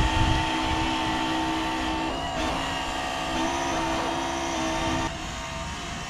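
Twin battery-powered electric motors of a Hydro-Net remote-control pool skimmer boat whining steadily, the pitch shifting about two seconds in and again near five seconds.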